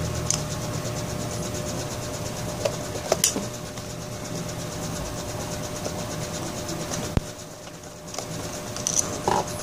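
A steady mechanical hum throughout, with a few light clicks and knocks about three seconds in and again near the end as the dismantled electric fan motor is handled.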